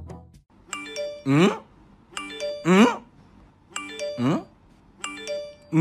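Electronic chime sounding four times, about a second and a half apart. Each is a quick ding-dong of ringing tones followed by a rising swoop.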